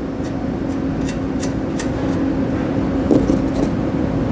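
Steady low mechanical hum of a shop machine or fan, with a few light metallic clicks as exhaust bolts and a flange gasket are handled.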